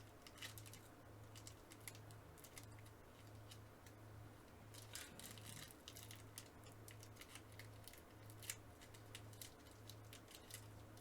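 Faint crinkling and tearing of a foil baseball-card pack wrapper being worked open by hand. The pack is hard to open. The sound comes in scattered bursts, with a low hum pulsing about twice a second underneath.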